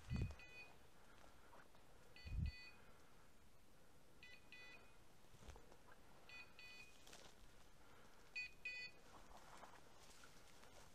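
A hunting dog's beeper collar sounding a short double beep about every two seconds, typical of its point signal while the setter holds still on point. Two soft low thumps near the start.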